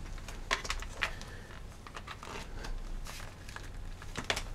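Power-adapter cable being unwound and handled, rustling against itself, with a few sharp clicks and taps as the cord and plastic power brick knock about, several of them together about half a second in and again near the end.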